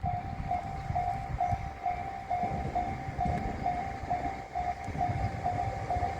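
Japanese level-crossing alarm ringing its repeating electronic ding, about two strikes a second, over the low rumble of a train on the tracks.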